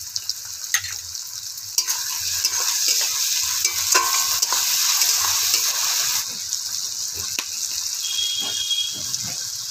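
Chopped onion and tomato frying in mustard oil in a metal kadai, with a steady sizzle as a metal spatula stirs and scrapes the pan. The sizzle grows louder from about two seconds in to about six seconds, and there are a few sharp clicks of the spatula against the pan.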